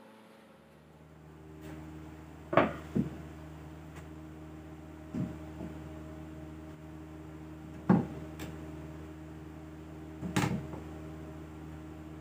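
Hammers being hung one after another in the slots of a plywood wall rack: four wooden knocks about two to three seconds apart, each followed by a softer second knock as the hammer settles against the rack. A steady low hum runs underneath.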